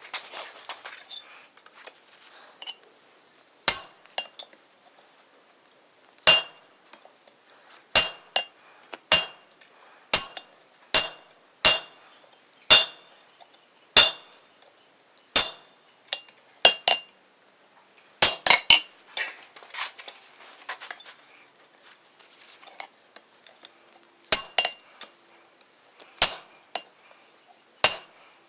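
Hammer blows on hot mild steel over an anvil, each strike ringing with a high metallic tone. The blows come one at a time, roughly a second apart, with a quick flurry partway through and then a short pause, as the leaf end of a round bar is worked.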